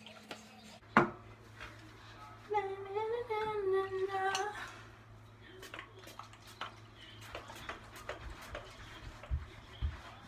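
A sharp click, then a woman humming a short wavering tune for about two seconds, followed by scattered light clicks and clatter of toiletry bottles and caps being handled.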